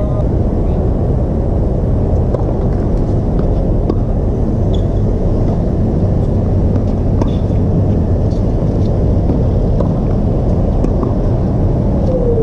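A tennis rally: several faint, sharp knocks of racket strings hitting the ball, over a steady, loud low rumble that carries on throughout.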